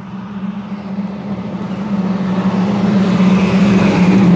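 Peterbilt 567 semi truck approaching, its diesel engine note holding a steady pitch and growing steadily louder as it nears.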